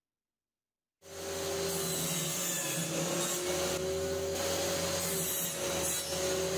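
Homemade table saw running and cutting through wood: a steady motor-and-blade whine with a slight dip in pitch as the blade takes the cut. It starts abruptly about a second in.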